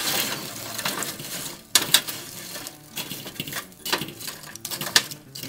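Metal grill tongs stirring burning charcoal in a kettle grill, bringing the coals up to searing heat. The lumps scrape and clink against each other and the metal bowl, with a few sharper knocks.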